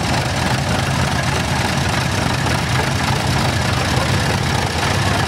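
Vintage tractor engines running steadily at low speed: an even, low engine hum.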